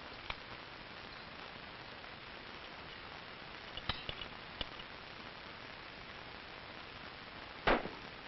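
Steady hiss of an old film soundtrack with a few faint clicks, one right at the start and a small cluster about four seconds in, then a single sharp rifle shot near the end.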